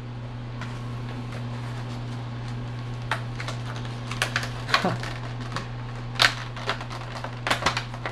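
Handling noise from childproof product packaging being worked at and pried open: scattered clicks and scrapes that start about three seconds in and come quicker near the end, over a steady low hum.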